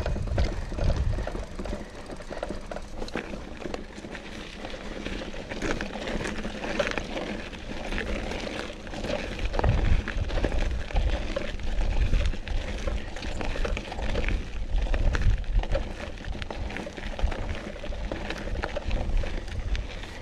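Hardtail mountain bike riding over a gravel track: tyres crunching on gravel with frequent small rattles and clicks. Wind buffets the camera microphone with a steady low rumble.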